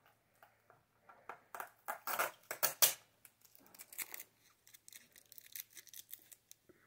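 Tape strip being picked at and pulled off a plastic gel-pen case, a run of scratchy rasps and small plastic clicks, loudest about two to three seconds in.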